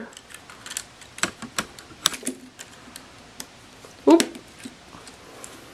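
Plastic K'nex rods and connectors clicking and snapping as they are handled and fitted together, a scatter of small sharp clicks at irregular intervals.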